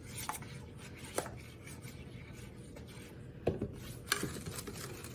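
A spoon stirring peanut butter and chopped string cheese in a mixing bowl: soft scraping with a few light clinks against the bowl.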